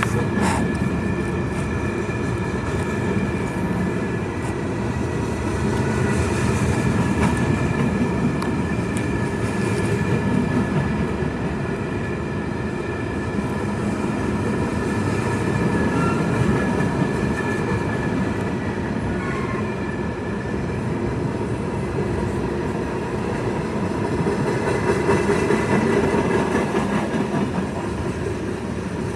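Freight cars, covered hoppers and then tank cars, rolling past steadily: a continuous rumble of steel wheels on rail that swells and eases, with faint steady high tones above it.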